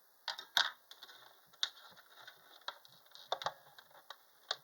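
Scattered light clicks and knocks of things being handled and set down, about half a dozen at uneven intervals.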